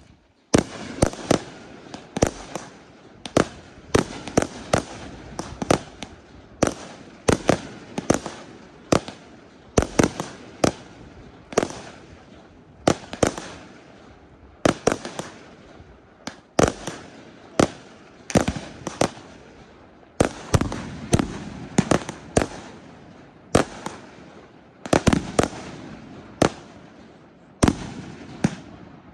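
Fireworks display: aerial shells bursting in a steady barrage of sharp bangs, one to two a second, each bang fading away before the next.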